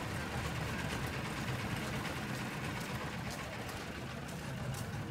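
Steady low rumble with a faint hiss of outdoor background noise; no distinct event stands out.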